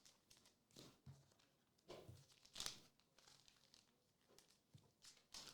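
Near silence with faint, scattered crinkling and rustling of cards and packaging being handled, and a few soft taps.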